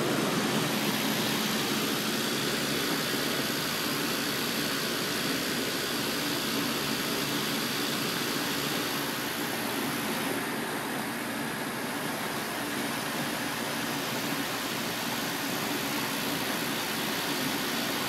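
Outdoor heat pumps, among them a Bard wall-mount unit, running in cooling mode: a steady rush of air from the condenser fans over a low, even hum.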